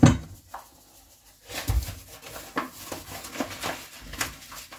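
A thump at the start, then irregular rustling and crinkling of a paper flour bag as its top is folded shut.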